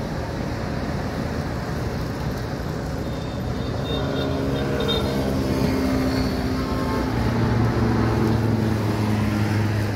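Road traffic with a vehicle engine running close by. Its low, steady hum comes in about four seconds in and grows louder about seven seconds in.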